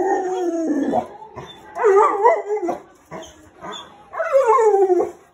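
A Newfoundland dog vocalizing in three drawn-out pitched calls: the first and last slide down in pitch, and the middle one wavers up and down. It is a dog begging to be let out.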